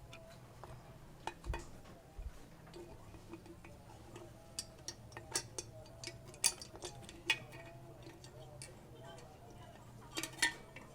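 Toys being handled, clicking and knocking together irregularly, with a few louder clacks about six seconds in and near the end.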